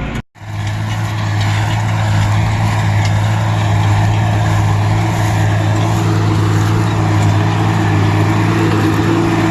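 Tractor engine running at a steady speed with a constant low hum, pulling a round baler through straw. The sound cuts out for a moment just after the start, then runs on unchanged.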